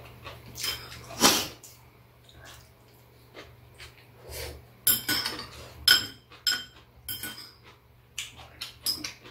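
Steel chopsticks and spoons clicking and clinking against bowls and a round metal tray as two people eat, in scattered strikes, a few with a short metallic ring.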